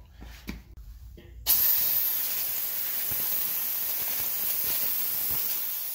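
Compressed air hissing steadily from a leaking fitting on a newly pressurized shop air line. The hiss starts abruptly about a second and a half in, after a few faint handling knocks.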